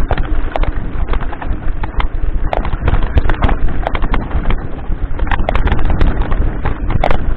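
Mountain bike rattling and clattering over a loose, rocky trail: a dense, irregular run of knocks and jolts from the tyres, frame and components striking stones, over a steady low rumble of vibration, heard from a handlebar-mounted camera.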